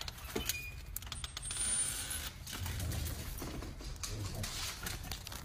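Metal door lever and latch clicking and rattling as a door is opened, with a few sharp clicks near the start and rustling handling noise after.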